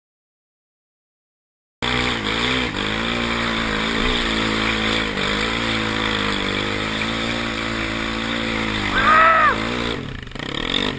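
Silence for almost two seconds, then a Kawasaki KFX400 quad's single-cylinder four-stroke engine running hard on a sandy climb, its pitch rising and falling with the throttle, recorded close up over a steady rush of wind noise. About nine seconds in a brief higher sound rises and falls over the engine.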